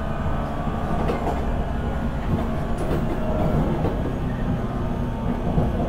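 Running sound of a JR 475 series express-type EMU heard from the car's vestibule. The MT54 DC traction motors and 19:80 gearing give a steady low hum and whine over wheel-on-rail rumble, with a few light clicks from rail joints.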